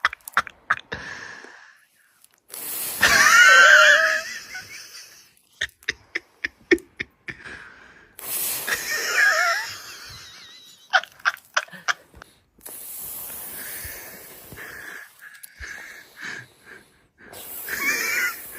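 A person's non-speech vocal sounds, laughter-like, in three wavering bursts, with runs of sharp clicks between them and a stretch of steady hiss later on.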